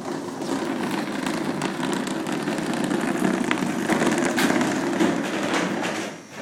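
Metal restaurant chair scraping and rattling as it is pushed across a hard floor, a continuous clattering drag that stops abruptly near the end.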